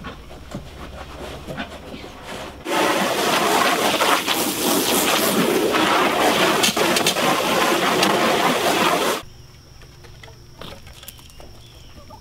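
A garden hose spray nozzle jetting water into an empty black stock tub, a loud steady hiss that starts suddenly a few seconds in and cuts off suddenly about six seconds later. Quieter barn and yard sound lies before and after it.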